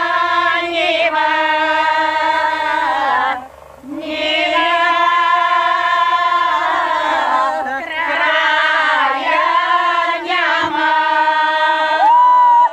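A group of village women singing a Bulgarian folk song a cappella in long held phrases, with a short pause for breath about three and a half seconds in. Near the end one voice rises to a loud, high held note.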